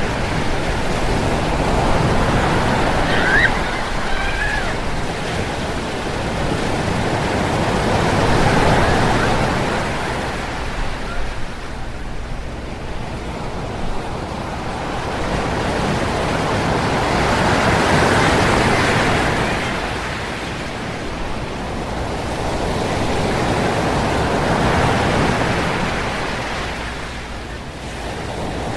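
Ocean surf breaking and washing up on a beach, swelling and fading in four slow waves about seven to ten seconds apart.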